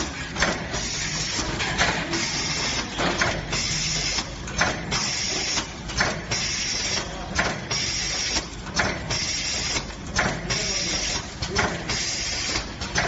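Automatic four-side-sealing packing machine for pregnancy test kits running, with a sharp clack about every one and a half seconds over a steady mechanical hiss and whir.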